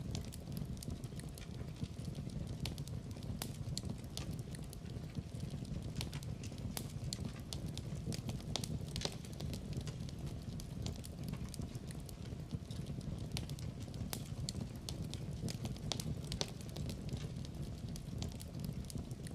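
Wood fire in a fireplace burning, with a low steady rumble and many sharp crackles and pops at irregular intervals.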